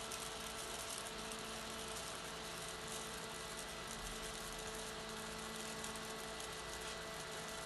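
Electric fan running steadily: an even whooshing of air with a constant motor hum at a few fixed pitches.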